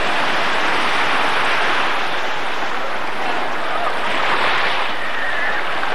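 Sea surf washing and breaking in the shallows: a steady, dense rush of water noise.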